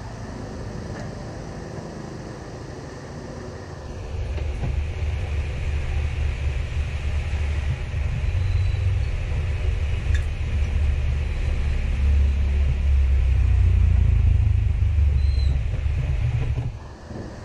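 A machine running with a low rumble and a steady hiss. It switches on about four seconds in, grows louder, and cuts off abruptly about a second before the end.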